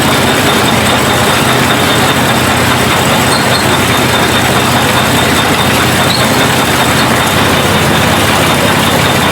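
Farm machinery running steadily under an engine: a constant loud mechanical din with a low engine hum and a thin high whine, with no change in pace.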